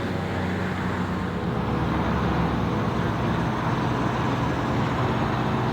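Steady engine hum and road noise from a motor vehicle, with no sudden events.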